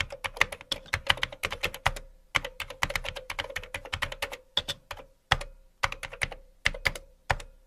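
Keystrokes on a computer keyboard, typed in quick irregular runs of clicks with short pauses between them.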